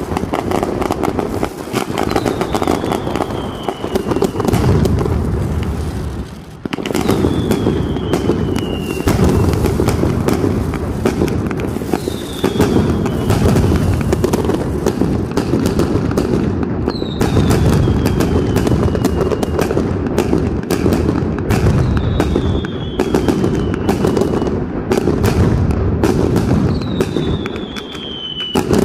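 Mascletà firecrackers going off in a dense, continuous barrage of rapid bangs. A short falling whistle comes through about every five seconds.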